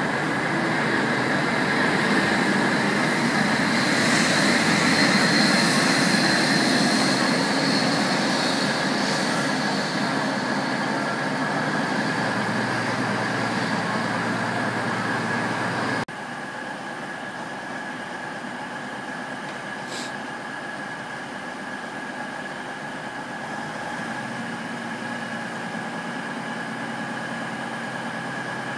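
Trains at a station: an HST's coaches rolling away on the far line beside an idling Class 222 Meridian diesel-electric unit, with a high whine rising slightly through the loudest stretch near the start. About halfway through the sound drops abruptly to a quieter, steady diesel idle with a constant high tone and a single sharp click.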